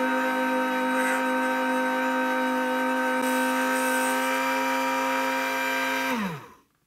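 Comm lathe's electric motor spinning a 550-size armature with a steady whine during a test cut on the commutator. About six seconds in it is switched off, and the whine drops in pitch as it spins down to a stop.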